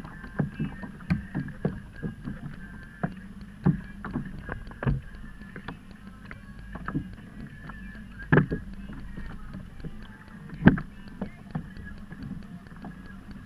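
Water slapping and knocking against a kayak hull, with irregular short knocks, two of them louder in the second half.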